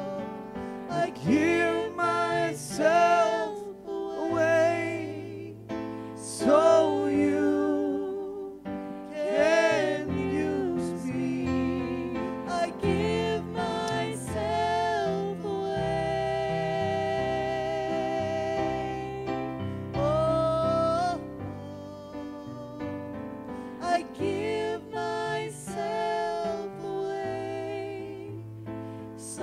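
Slow gospel worship singing with vibrato over sustained keyboard chords.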